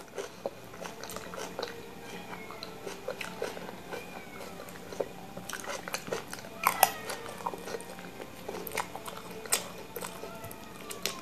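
Close-up eating sounds: chewing and mouth noises, with a spoon and fork clicking and scraping against a plate, the sharpest clicks about seven and nine and a half seconds in. A few faint tones glide up and down behind them.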